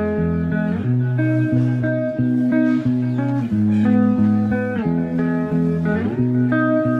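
Background instrumental music: held chords that change about every second over a low bass line.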